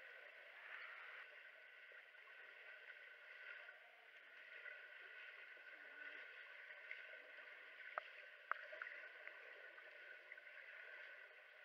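Faint, muffled underwater noise of a swimming pool as swimmers pass, picked up by a camera under water. Two sharp clicks come about eight seconds in.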